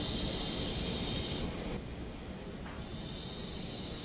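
A long, breathy whispered 'heee' exhalation, the sub-vocal triple warmer healing sound, that fades out about one and a half seconds in, leaving a faint steady hiss.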